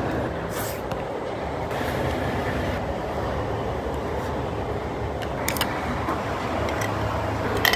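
Steady rumbling background noise, with a couple of light clicks about five and a half seconds in and near the end.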